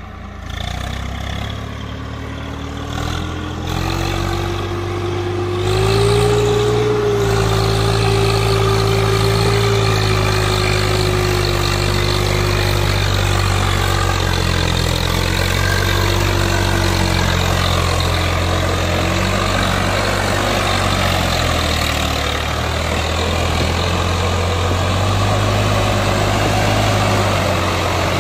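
Swaraj tractor's diesel engine running under load as it pulls a fully loaded trolley, getting louder over the first few seconds as it approaches. A whine above the engine note rises over the first seven seconds, then slowly falls away.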